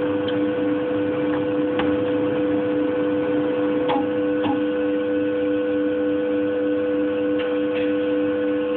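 Schmaltz cylindrical grinder running, its motors and spinning wheel making a steady hum with two constant tones, and a few faint ticks.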